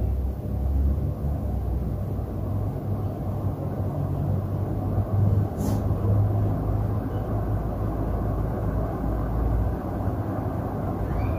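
60-inch KDK industrial ceiling fans running: a steady rush of moving air over a low hum, with one brief click about halfway through.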